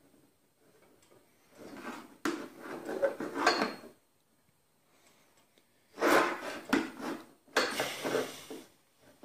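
Two spells of metal tools clattering and scraping, each about two to three seconds long, the first starting about a second and a half in and the second about six seconds in, with sharp clicks among them.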